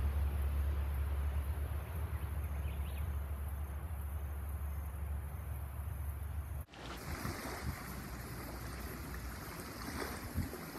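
Outdoor ambience: a steady low rumble that cuts off abruptly about two-thirds of the way in. It gives way to wind buffeting the microphone, with a few low thumps.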